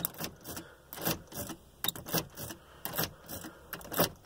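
A key ring jingling and clicking as the key is pushed into and pulled out of a Nissan ignition lock over and over, a few clicks a second. This is the in-and-out key cycling that puts the car's keyless-entry system into remote-programming mode.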